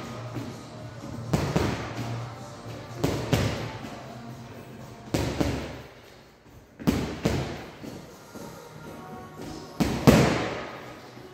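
Gloved punches landing on a hanging heavy punching bag, in ones and twos every couple of seconds, each hit echoing in the hall. The last pair near the end is the loudest.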